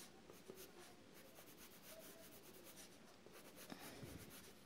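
Faint scratching of a coloured pencil on paper in quick, repeated short strokes, shading in layers of colour.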